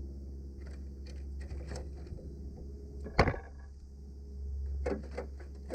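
Light clicks and knocks of something being handled, with one sharp, loud click about three seconds in and a few smaller clicks near the end, over a steady low hum.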